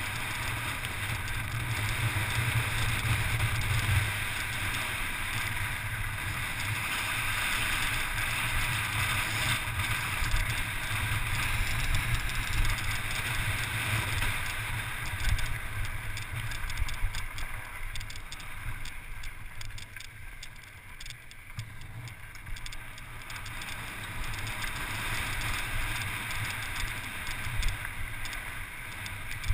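Steady rush of wind and rumble of riding fast down a loose volcanic gravel track, easing briefly about two-thirds of the way through.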